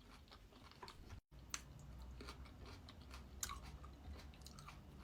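A person chewing and crunching on sourdough bread, with many small crisp clicks; the sound cuts out completely for an instant about a second in.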